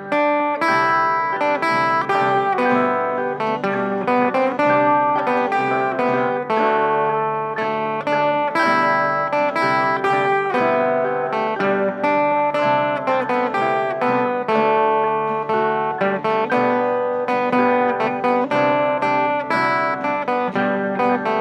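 Acoustic guitar, tenor guitar and ukulele playing a folk tune together, picked and strummed at a steady pace.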